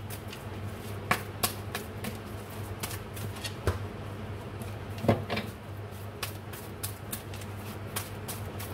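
A deck of cards being shuffled by hand: a quick irregular run of light clicks and flicks as the cards slide and tap against each other, with a few louder slaps about a second in, near a second and a half, near four seconds and about five seconds in.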